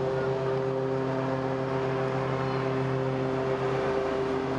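A steady, machine-like hum made of several held tones that do not change.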